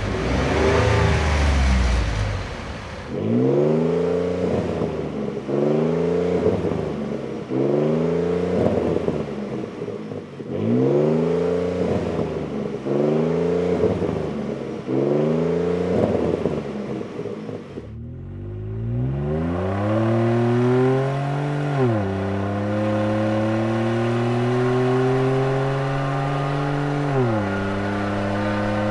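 Ford F-150's 3.5L EcoBoost twin-turbo V6 through an aFe Atlas 4-inch single side-exit cat-back exhaust. First comes a string of quick free-revs about every two seconds. After a short break it pulls hard under acceleration, the pitch climbing and dropping twice at the upshifts. The first few seconds are the same truck on its stock exhaust.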